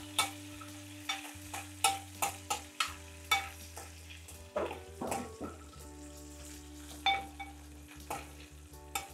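Slit green chillies frying and sizzling in a tempering of hot oil with mustard seeds, cumin and garlic in a pan, stirred with a spoon that clicks and scrapes against the pan about a dozen times.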